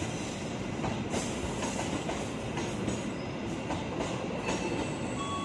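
Passenger coaches of a locomotive-hauled express train running through the station without stopping: a steady rolling rumble with wheels clacking over rail joints.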